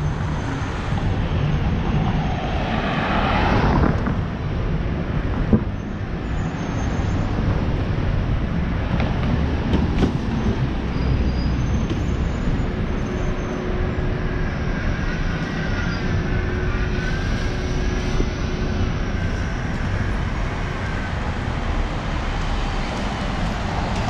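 Street traffic on a city avenue: a steady rumble of car engines and tyres, with one vehicle passing close and louder about three to four seconds in.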